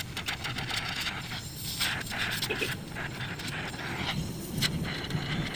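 Oxy-fuel gas cutting torch playing on steel pipe and plate: a steady hiss from the flame and gas jet, with short crackles as sparks and molten metal spit off the hot steel.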